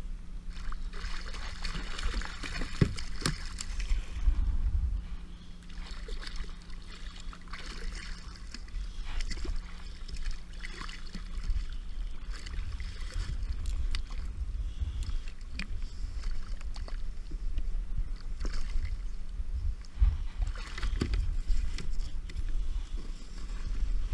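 Water splashing and sloshing against a sit-on-top kayak's side as a hooked smoothhound shark is brought to the surface and lifted aboard. A low, uneven rumble runs underneath, with scattered sharp knocks, several seconds apart, of gear and hands against the plastic hull.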